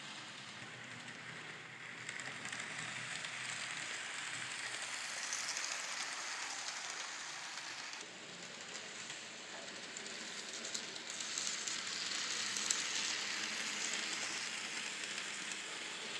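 N scale model trains running along the track: a steady hissing rattle of small wheels on rail and tiny motors that swells as a train passes close.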